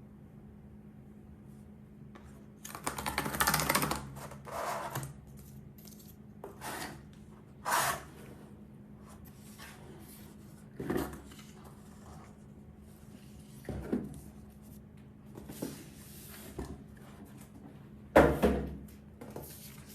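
Laptop box and packaging being handled and opened: intermittent rustles, scrapes and light knocks of cardboard and wrapping. The longest stretch is about three seconds in, and the loudest comes near the end.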